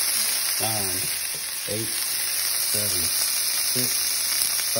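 A strip of raw bonita searing in hot oil in a frying pan: a steady, hissing sizzle.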